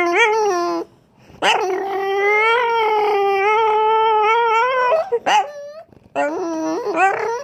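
French bulldog making long, drawn-out whining howls that rise and dip in pitch, a noise likened to a racecar. There are three sustained calls, the middle one lasting about three and a half seconds, with a short yelp between the last two.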